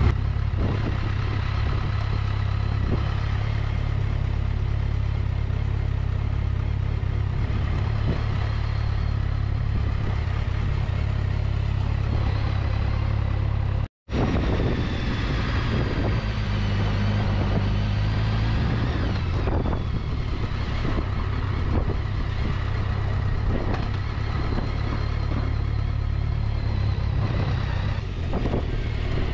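Motorcycle engine running steadily while riding slowly through town, with a deep steady rumble under it. The sound drops out for an instant about halfway through.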